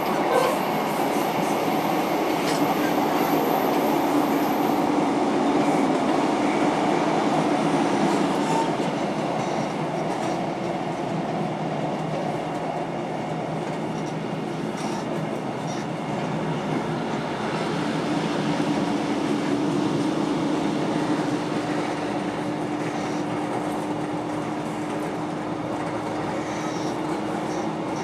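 Passenger train running at speed, heard from on board: a steady rumble of wheels on rail with a droning tone underneath and occasional faint rail clicks.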